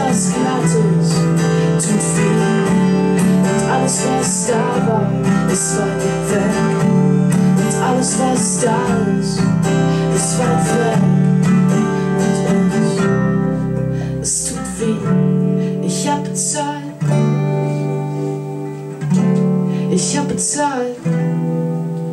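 Live guitar music from a small band: acoustic guitars strummed together with an electric guitar, in a passage without sung words.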